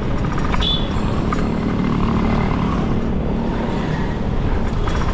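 Motor traffic on a main road, heard from a moving bicycle: steady rumbling road noise, with a passing vehicle's engine hum near the middle.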